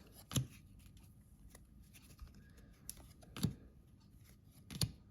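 Baseball trading cards being handled while a pack is flipped through: a few separate sharp taps and clicks of card stock, the clearest near the start, about two-thirds of the way through, and near the end.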